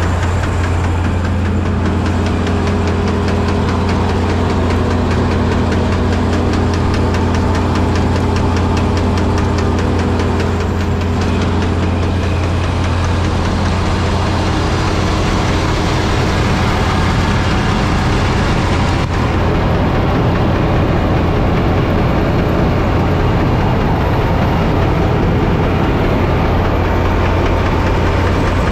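Massey Ferguson 86 combine harvester running steadily at raised revs, its threshing mechanism engaged to blow dust and chaff out of the machine.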